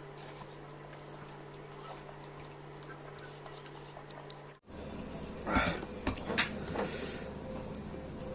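Close-up eating sounds of fried chicken and rice: small clicks and chewing over a steady low hum. A little past halfway the background changes abruptly, and louder crunches and handling sounds follow, two of them sharp.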